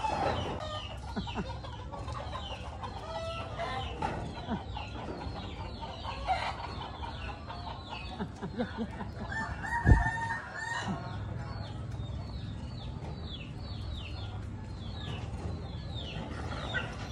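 Chickens clucking, with a stream of quick high falling chirps throughout. A rooster crows once about nine seconds in. A single sharp thump, the loudest sound, comes at about ten seconds.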